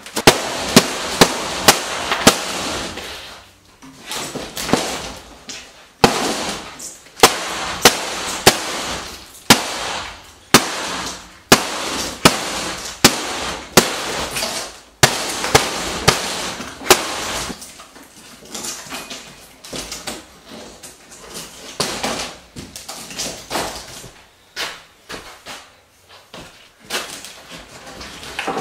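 Demolition of a wooden wall: repeated sharp knocks and cracks as framing and paneling are struck and pried apart, about one to two a second, then thinning out and getting quieter after about seventeen seconds.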